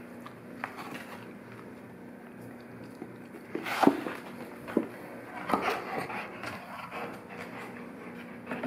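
Golden retriever chewing and tearing a cardboard cereal box, with crackling rips and crunches. The loudest comes about four seconds in, followed by several more over the next two seconds.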